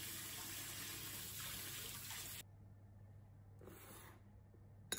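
Water running from a tap into a stainless steel sink as a fork is rinsed; it cuts off abruptly about halfway through, leaving quiet with a brief faint noise near the end.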